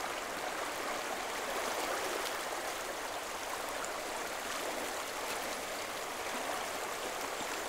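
A swollen river in flood, its muddy water rushing past steadily over its banks after a storm.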